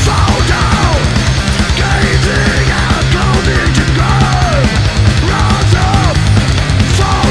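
Loud heavy rock music with fast, driving drums and a pitched lead line that bends up and down over it.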